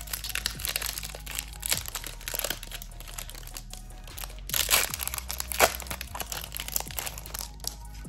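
Foil wrapper of a trading-card booster pack being handled and torn open, giving crinkling and crackling, loudest about halfway through.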